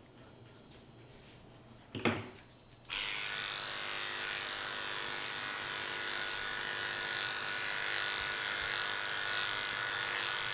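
Electric dog-grooming clippers switched on about three seconds in, then running with a steady buzz as they cut through thick dog coat. A short knock just before they start.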